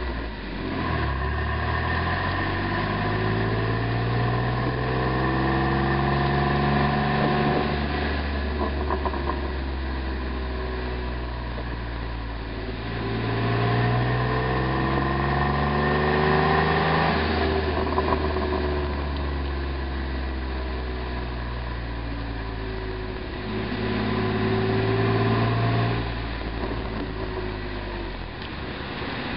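Jeep Wrangler JK's 3.8-litre V6 running through an MBRP aftermarket exhaust, its pitch climbing three times under throttle and falling back as it eases off. A few brief pops sound from the exhaust, the popping that this exhaust is known for.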